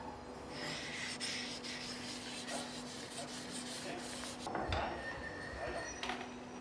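A flat abrasive stone scraping back and forth over the deck face of a Fiat 1.3 JTD engine block, dressing the surface clean before the new cylinder head gasket goes on. The scraping stops about four and a half seconds in and is followed by a single knock, the loudest sound.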